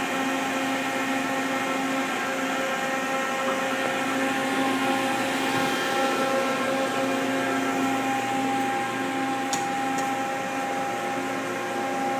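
Electrical-cabinet cooling fans of a powered-up 1997 Mazak QT-20 CNC lathe running with a steady hum; the fans are working normally. Two light ticks come a little after the middle.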